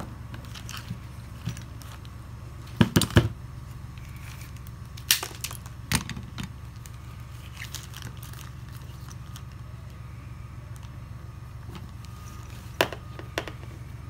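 Handling noises on a workbench: a few sharp clicks and clatters as wires and small parts are picked up and moved, the loudest cluster about three seconds in and two more near the end, over a steady low hum.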